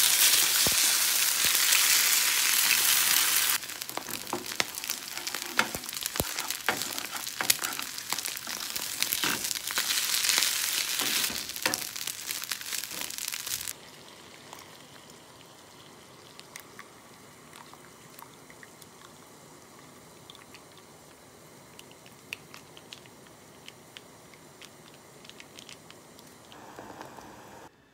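Eggs and glass noodles frying in oil in a nonstick pan, a loud steady sizzle with the click and scrape of wooden chopsticks against the pan. About 14 seconds in it drops suddenly to a much quieter pot of water heating on a gas stove, a faint hiss with scattered ticks.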